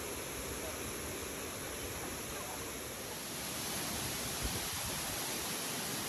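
Waterfall plunging into its pool, a steady rush of falling water that gets a little louder about halfway through.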